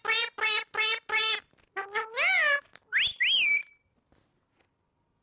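Parrot calling: a quick run of short, repeated pitched calls, about four a second, then a longer call that rises and falls. About three seconds in come two high whistles that swoop up and down.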